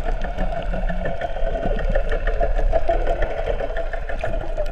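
Steady mechanical hum of an engine, heard underwater, holding one even pitch throughout.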